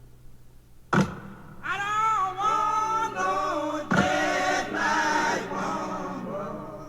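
Music with several voices singing together in held, bending lines. There is a sharp hit about a second in and another about four seconds in.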